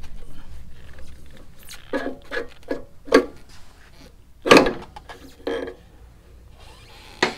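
Steel front axle of a Harley-Davidson touring motorcycle being pulled out through the wheel hub and fork: a string of short metal scrapes and knocks with some ringing, the loudest about halfway through, and a sharp click near the end.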